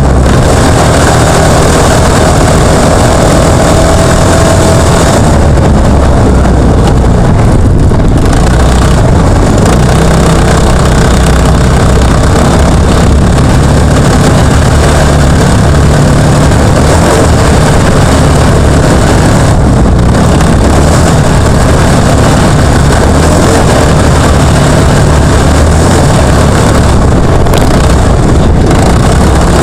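Jr1 off-road trophy kart's engine running hard at racing speed, heard on board: loud and noisy, with the sound easing back briefly a few times.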